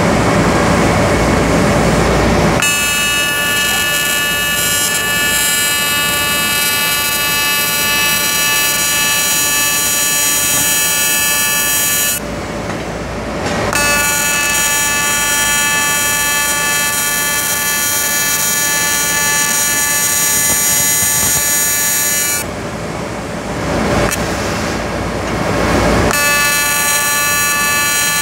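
AC TIG welding arc on aluminum: a steady, loud buzz with many overtones. It breaks off twice, for a second or two a little before halfway and again for a few seconds near the end, leaving a steady hiss, and then strikes up again. A rougher, even hiss without the buzz comes first, for the first couple of seconds.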